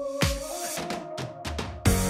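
Background music with a drum beat: kick and snare hits over held notes, with a fuller, louder section and a steady bass coming in near the end.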